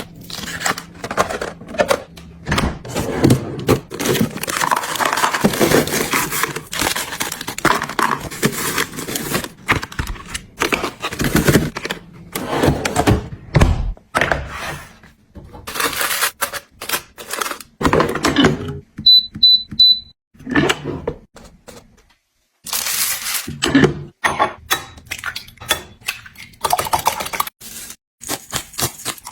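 Close-up handling of small objects: irregular clicks, knocks and rubbing, with three quick high electronic beeps about nineteen seconds in.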